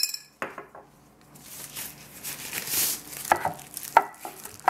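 Kitchen handling sounds as spice-rubbed raw chicken breasts are turned on a ceramic plate: a sharp click at the start as a spice shaker is set down, a rubbing hiss in the middle, then a few sharp knocks against the plate.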